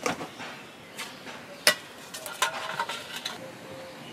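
Metal slotted spoon clinking and scraping against a metal pan and steel plate as boiled eggs are lifted out of the water. Several sharp clinks, the loudest about a second and a half in, followed by a quick cluster of lighter clinks with a short metallic ring.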